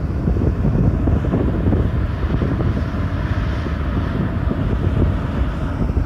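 Wind buffeting the microphone: a loud, uneven low rumble that flutters throughout.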